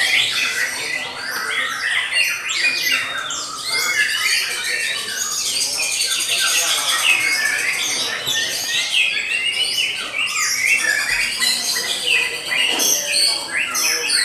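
White-rumped shama (murai batu) in contest song: an unbroken, rapid run of varied whistles, chirps and trills, the notes rising and falling quickly.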